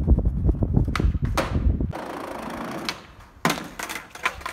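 Skateboard on hard urethane wheels rolling over concrete with a steady low rumble and a couple of sharp cracks, then the rumble stops. About three and a half seconds in comes a sharp landing impact at the bottom of the stairs, followed by several clacks as the board comes down loose from the rider on the pavement.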